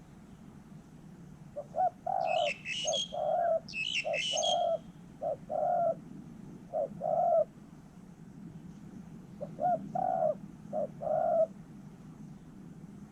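Spotted dove cooing in short phrases, each a clipped note followed by a longer coo. One run of phrases is followed by a pause, then a second shorter run. A small songbird chirps briefly twice near the start.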